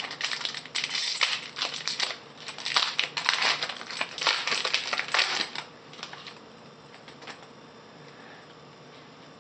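Foil wrapper of a trading-card pack being torn open and crinkled: rapid, irregular crackling that stops about five and a half seconds in.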